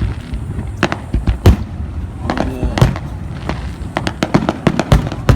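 Aerial fireworks going off: an irregular string of sharp bangs and crackles, loudest about a second and a half in and again near the end.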